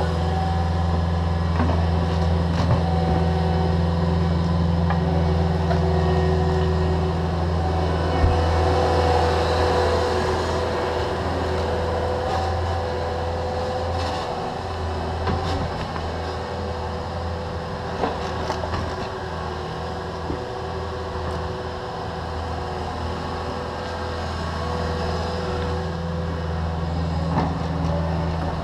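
Diesel engines of a Cat 305.5E2 mini excavator and a Cat 289D compact track loader running while moving dirt, a steady low drone with a higher steady whine over it. The loader's engine fades as it drives off partway through and grows louder again near the end. Occasional sharp knocks.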